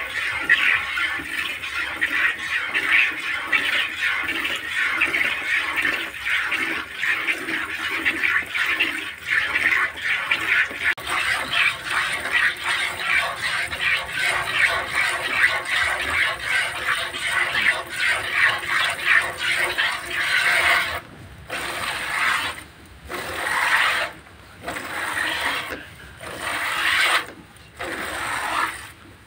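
Hand milking a cow: streams of milk squirting from the teats into a plastic bucket of milk, a fast pulsing hiss with each squeeze. From about two-thirds of the way in, the squirts come in separate bursts with short pauses between.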